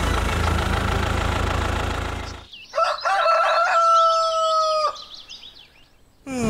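A steady mechanical running noise that stops about two and a half seconds in, then a rooster crowing once, a long call of about two seconds.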